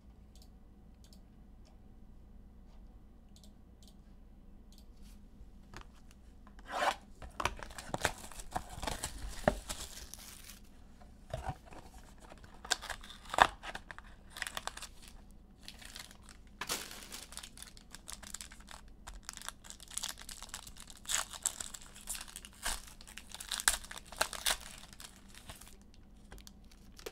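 Sports-card pack wrappers being torn open and crinkled. The tearing and rustling comes in irregular bursts, starting about six seconds in.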